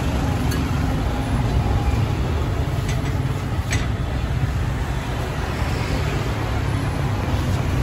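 Steady low rumble of passing street traffic, with a couple of faint clicks.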